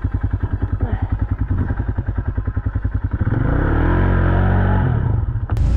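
Snow bike's dirt-bike engine chugging at low revs, about ten pulses a second, then revved hard about three seconds in, the pitch climbing and falling back, as the bike struggles for traction in deep snow. A sharp click near the end.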